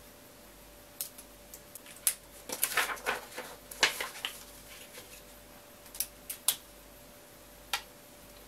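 Paper being handled and folded on a wooden table, with scattered sharp clicks and taps from a pen. The denser rustling comes in two short spells a few seconds in.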